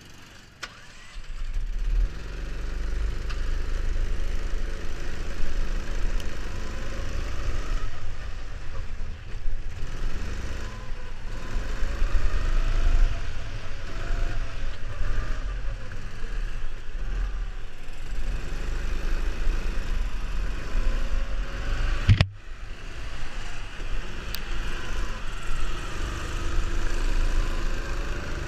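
Onboard sound of a rental go-kart's engine, quiet at first and then pulling away hard about two seconds in. It keeps running at changing revs, its pitch rising and falling through the corners, over a heavy low rumble of wind on the microphone.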